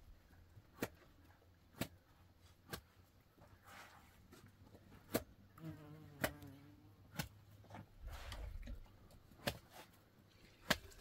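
Faint buzzing of flies close by, with sharp clicks every second or so and a brief faint pitched call a little past the middle.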